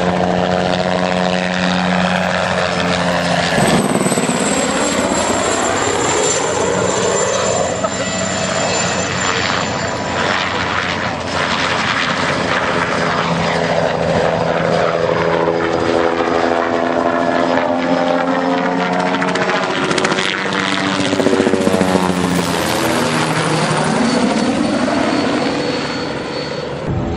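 Bell 206 JetRanger III helicopter flying a display: the steady beat of its main rotor with the high whine of its Allison 250 turbine, swelling and shifting as it banks and manoeuvres. About two-thirds of the way through, the whine rises and then falls in pitch as the helicopter passes close.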